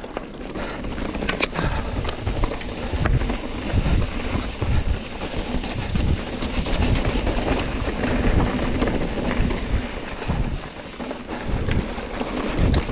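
Mountain bike riding fast over a rough dirt trail, the bike rattling with many small knocks, and wind buffeting the microphone.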